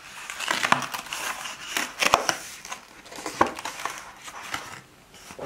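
Thin cardboard box torn open along its perforated strip and its lid folded back: irregular rustling and crackling of card, with a few sharp snaps.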